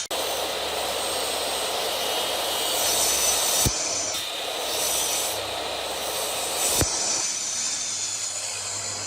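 A power tool running steadily on wood, making a continuous noisy whir. There are two brief clicks where the sound cuts, about a third and two-thirds of the way through.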